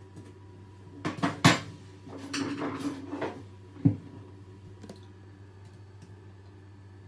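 Several sharp clinks and knocks of hard objects, with a short scraping rattle between them, over a faint steady hum.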